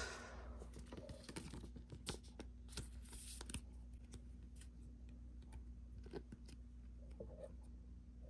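Faint, scattered clicks and light scratchy rustles of Pokémon trading cards being handled and slid through the hands, with a short rush of noise right at the start.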